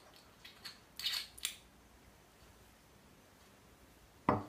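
A few short, crisp clicks and scrapes from handling a small glass dropper bottle of vanilla over a blender jar, then a single dull knock near the end.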